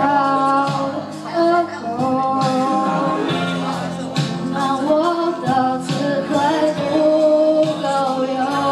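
A young woman singing a pop song into a handheld microphone over a music backing track, her voice moving between held notes.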